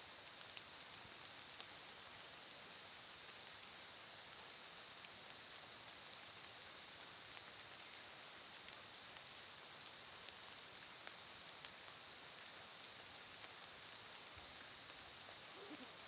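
Faint, steady outdoor hiss with a few scattered light ticks.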